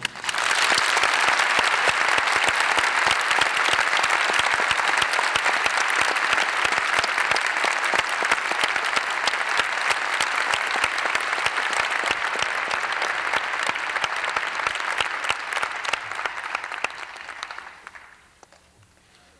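Theatre audience applauding for a dancer's bow: dense, steady clapping that starts at once and dies away about seventeen seconds in.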